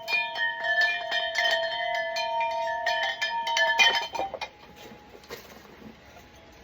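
Bell-like metallic ringing of several steady tones with repeated clinks, stopping about four seconds in.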